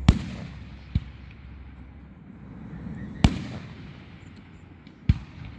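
Aerial firework shells bursting: four sharp booms, about a second, then two seconds apart, the first and third loudest, each trailing off in a brief low rumble.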